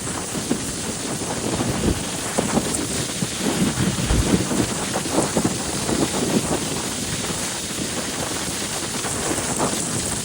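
Bad wind noise on the microphone of a motorcycle being ridden, a loud steady rush with uneven low gusts of buffeting, heaviest about four to six seconds in.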